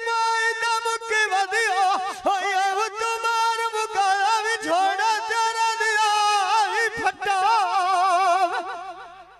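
A man singing Punjabi dhola folk verse unaccompanied into a microphone. He holds long, high notes with a wide, wavering vibrato, and the voice fades out near the end.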